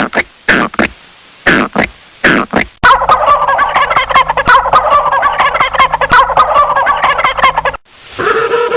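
Turkey gobbling: a dense, rapid burbling call lasting about five seconds. Before it come several short, loud calls from another animal, and after it a held, pitched call begins near the end.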